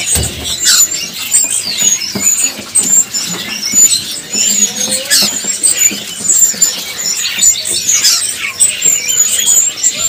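Many caged songbirds chirping and calling at once: a loud, dense, high-pitched chatter, with one very high, short chip repeated over and over through it.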